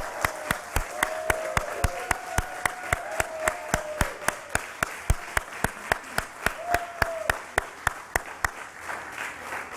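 A small crowd applauding, one clapper near the microphone standing out with steady claps about three or four a second, a few voices calling out over it. The applause thins out near the end.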